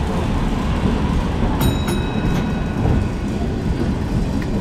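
A 1921 Wellington double-saloon electric tram running past on the next track, a steady rumble of wheels on rail. About one and a half seconds in come a couple of sharp metallic clicks with a brief ring.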